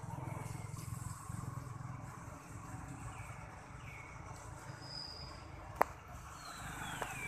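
Outdoor background with a steady low rumble, several short high-pitched chirps and a falling whistle-like call near the end, and one sharp click about six seconds in.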